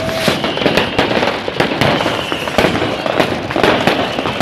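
Many firecrackers and fireworks going off at once in a dense, continuous crackle of cracks and bangs, with a faint high whistle sliding down in the first half.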